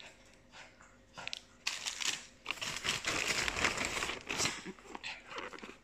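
Plastic packaging crinkling and rustling as it is handled: faint at first, then loud, dense crackling from about a second and a half in until shortly before the end.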